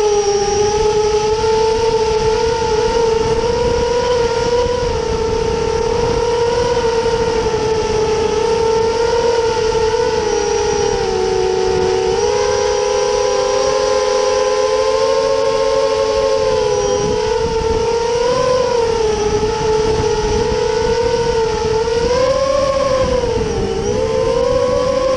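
FPV quadcopter's motors and propellers whining steadily. The pitch wavers with throttle, dipping and climbing more sharply near the end.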